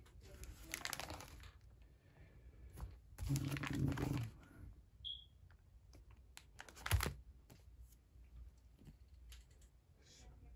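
Plastic card sleeves and binder pages being handled: irregular rustling and crinkling as sleeved trading cards are picked up and moved, with light clicks and one sharper click a little past the middle.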